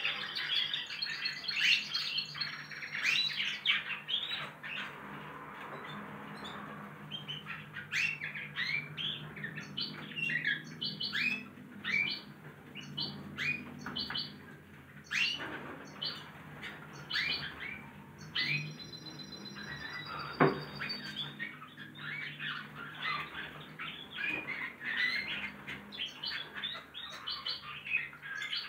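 Several young goldfinch × canary hybrids (mules) practising their song together: a dense stream of overlapping chirps, twitters and short trills, with a few held high notes. A single sharp click sounds about twenty seconds in, over a faint low hum.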